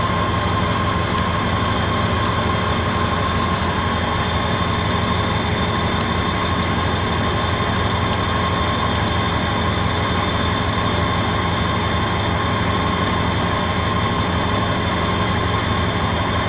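Trans-Siberian passenger train running steadily: an even rolling rumble with a constant high hum through it.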